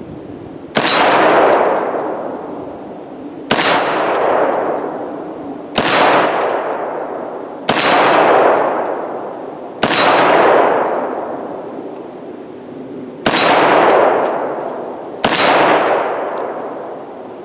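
A 7.62x39 AR-15 rifle fired seven single shots, spaced about two to three seconds apart, each shot trailing off in a long echo. The rifle cycles through the magazine without a stoppage.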